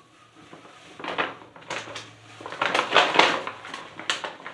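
Crinkling and rustling of a plastic chocolate bag being handled, in several crackly bursts that are loudest about three seconds in.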